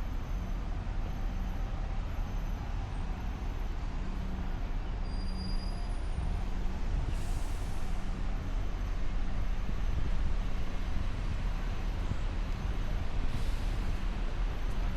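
City road traffic: a steady low rumble with a heavy vehicle's engine running, and two short hisses of air brakes, about seven seconds in and again near the end.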